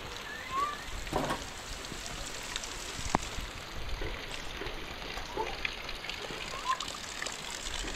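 Steady rain falling, with scattered drip ticks and one sharper tick about three seconds in.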